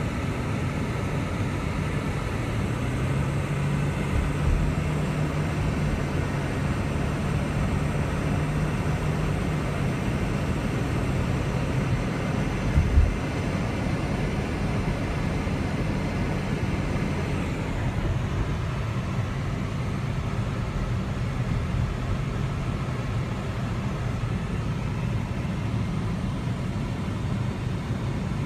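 Car engine and road noise heard inside the cabin while driving, a steady low hum. A single low thump comes about halfway through.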